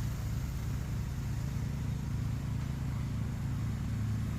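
Engine of a shed-moving mule running steadily while it lifts and positions a shed, a low even hum.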